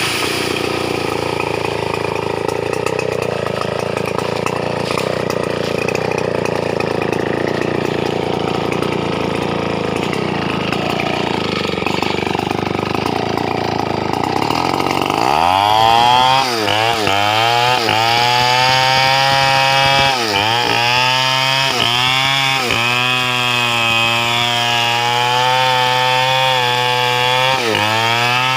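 Stihl 070 two-stroke chainsaw cutting a teak tree, running rough and low under load. About halfway through, its engine pitch climbs sharply to a high, steady rev, broken by a few brief dips.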